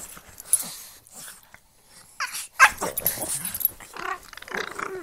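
A pug and a Boston terrier play-fighting mouth to mouth, growling in irregular bursts. There is a short lull about two seconds in, then a sharp loud burst and a run of wavering growls.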